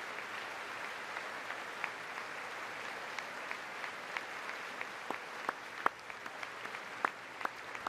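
A large audience applauding: dense, steady clapping that thins out about halfway through into scattered single claps.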